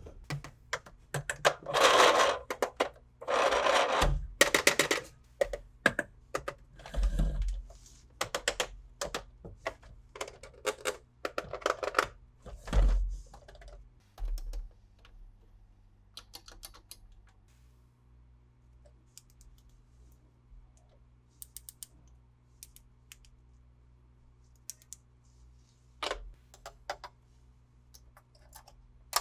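Plastic toy packaging and parts being handled: crinkly rustling and quick plastic clicks, busy through the first half, then only scattered faint clicks.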